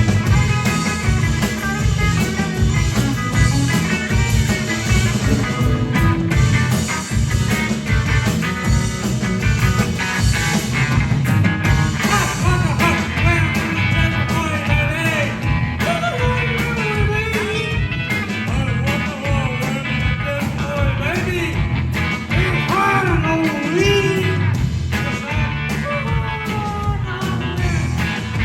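Rock band playing live, with guitar and a steady drum beat; a singer's wavering voice comes in about halfway through.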